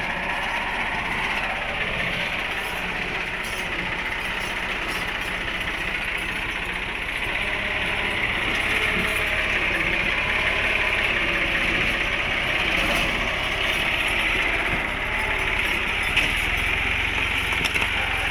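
Farm tractor's diesel engine running steadily as it hauls a trolley loaded with bricks, getting a little louder about halfway through.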